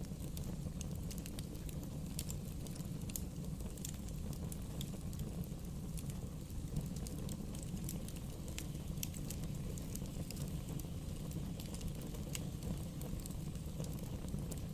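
Bonfire burning, with a steady low rumble and irregular sharp crackles and pops of burning wood scattered throughout.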